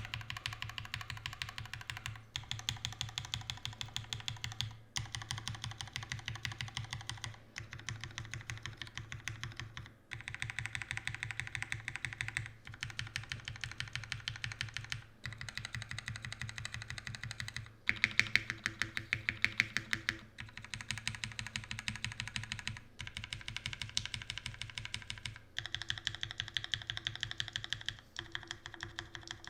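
Fast typing on a GAF x TGR 910 mechanical keyboard with a top-mounted aluminium plate, lubed and filmed Cherry MX Black linear switches and GMK keycaps. It comes in bursts of a couple of seconds, with brief pauses between them.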